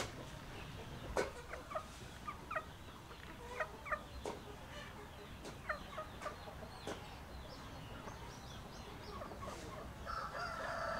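Chickens clucking, with short calls scattered throughout and a few sharp clicks. A longer, louder call sets in near the end.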